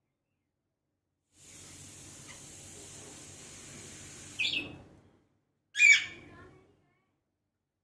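Alexandrine parakeet giving two short loud calls, about a second and a half apart, over a faint steady hiss.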